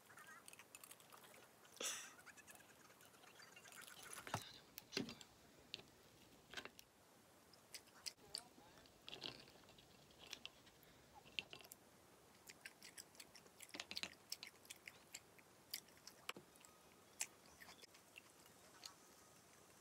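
Faint close-up eating sounds: chewing, with scattered light clicks as wooden chopsticks pick steamed clams from their shells and tap the ceramic bowl.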